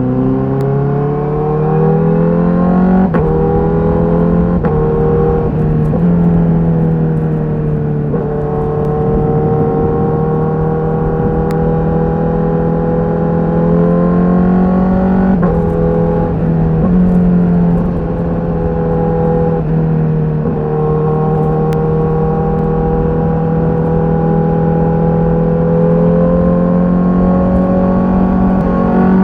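Honda CBR1000RR-R SP's inline-four engine running through its stock exhaust, with the bike under way. The revs climb for about three seconds, then the pitch drops suddenly, like a quick-shifted upshift. After that the engine runs at a fairly steady speed, with several brief dips and rises in pitch.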